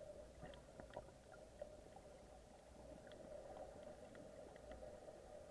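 Near silence: room tone with a faint steady hum and a few small, soft clicks.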